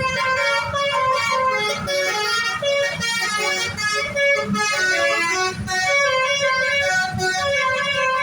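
A bus's 'basuri' telolet multi-tone horn playing a melody, note after note.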